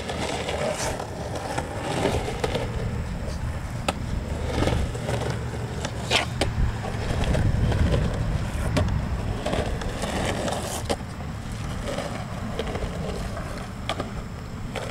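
Longboard wheels rolling over rough concrete: a steady low rumble that swells about halfway through, with a few sharp clicks along the way.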